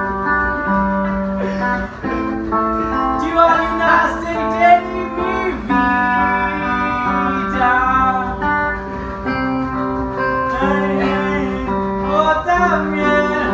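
Guitar playing held, ringing notes, with a voice singing along in several phrases.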